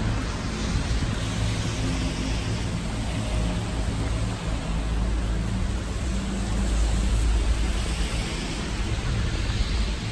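Steady rain falling on wet stone paving, with a constant heavy low rumble underneath.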